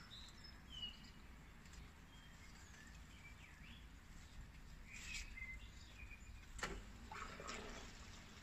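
Faint, scattered high bird chirps over a low steady background rumble. In the second half come a few brief rustles and a sharp click, from hands handling the tomato stems and leaves.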